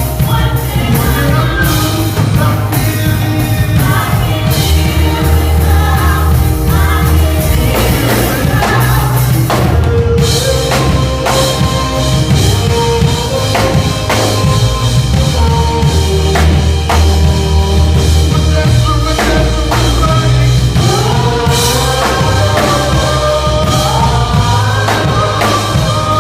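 Live gospel band playing loudly, with singers, a full drum kit and heavy bass.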